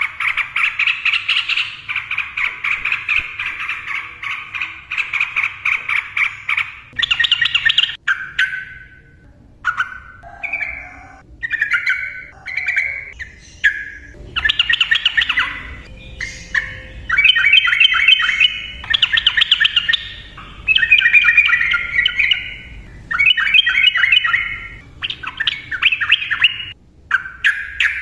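Yellow-vented bulbul singing: a fast, unbroken run of chattering notes for about the first seven seconds, then a string of short bubbly phrases separated by brief pauses.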